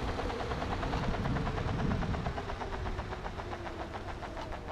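Backfire Ranger X1 electric skateboard rolling on pavement: tire noise with a fast, even pulsing and a faint steady tone. It is the rear tires' scrubbing noise; the newly replaced front tires no longer scrub, only the plain sound of rubber on the road.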